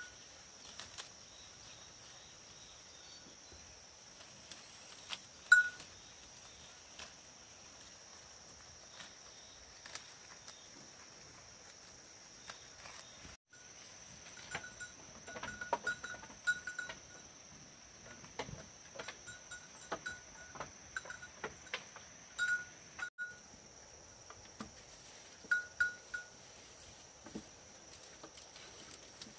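Small bell on a goat's collar clinking now and then as goats pull at and eat leafy branches, with rustling and snapping of leaves and twigs. The clinks come singly and in quick runs, busier in the second half.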